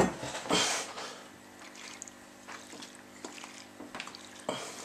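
Vodka sloshing inside a glass clip-top Kilner jar of cherries and sugar as it is tipped and shaken by hand, mixing the sugar into the vodka. Loudest in the first second, then softer.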